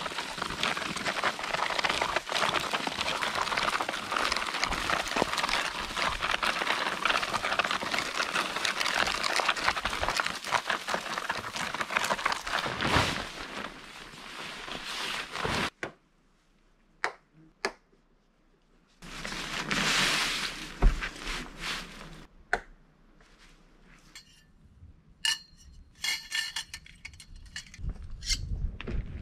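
A dead tree being dragged along a gravel road, its dry branches scraping and crackling over the ground steadily for about half the time. After a short near-silent gap, a tarp rustles briefly as it is unfolded, and a few light clinks and taps follow.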